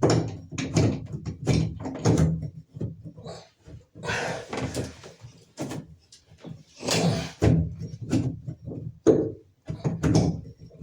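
Shower diverter socket clanking and scraping against the diverter's metal nut and the tight fiberglass surround as it is worked on to unscrew the old diverter. There is a run of knocks and clicks, with two longer scrapes about four and seven seconds in.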